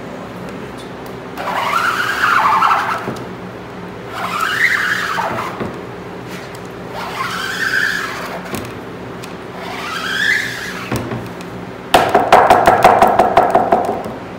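Rubber squeegee dragged across the screen-printing mesh through plastisol ink, four separate strokes that each squeak, rising and then falling in pitch. Near the end comes a louder stroke that judders rapidly, about seven judders a second. A low steady hum runs underneath.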